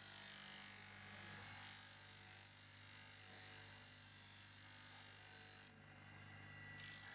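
Motor-driven grinding wheel running with a steady hum while the steel jaws of rusty pliers are ground against it, giving a faint hiss. The hiss breaks off for about a second near the end as the pliers come off the wheel.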